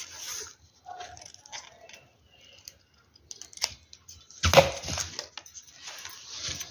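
Scissors snipping through folded paper, then the cut paper pattern crinkling and rustling as it is handled and unfolded, the loudest rustle about four and a half seconds in.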